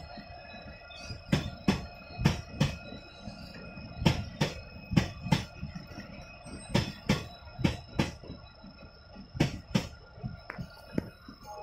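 Passenger train coaches passing at speed, their wheels clicking sharply over a rail joint in pairs, roughly a pair a second, as each bogie's two axles cross it. The clicks thin out and stop near the end as the last coach goes by.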